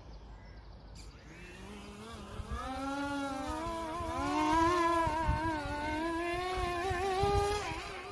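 The electric motor-driven propellers of a foam RC Boeing 787 model spooling up: a buzzing whine that climbs in pitch from about a second and a half in, holds loud and wavering, then falls away near the end as the plane is hand-launched and flies off.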